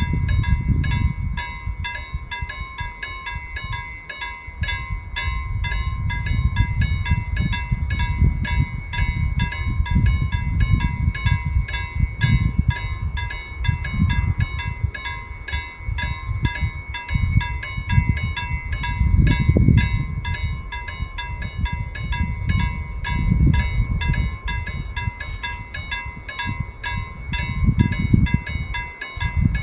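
Railway level-crossing warning bell ringing steadily with rapid, even strokes, announcing an approaching train. Wind gusts rumble on the microphone underneath.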